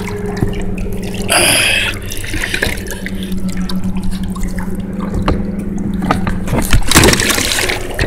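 Water dripping and splashing as a Minn Kota trolling motor is raised out of the water on a kayak, over a steady low hum. There is a brief rush about one and a half seconds in and a louder one near the end.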